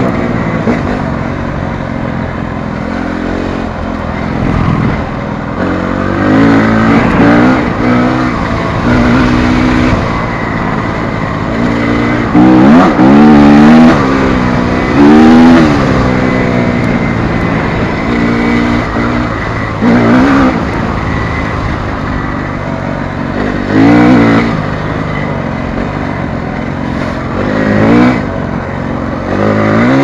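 2009 TM Racing EN 250 F four-stroke single-cylinder enduro engine heard on board while riding, running at part throttle and revving up and falling back again in about half a dozen louder bursts of throttle.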